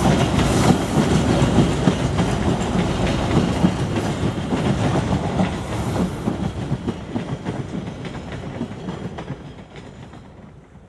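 Passenger train coaches rolling past, their wheels clattering on the rails. The sound fades steadily over the last five seconds as the rear coach draws away.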